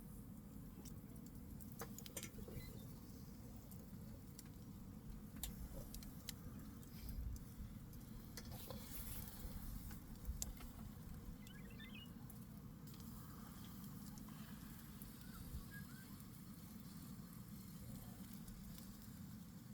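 Faint steady low rumble of outdoor background noise, with scattered light clicks and taps.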